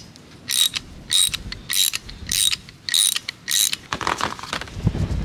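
Hand socket ratchet clicking in six short back-swings, about one every 0.6 seconds, while it turns a motorcycle oil drain plug clamped in locking pliers. Fainter handling noise follows near the end.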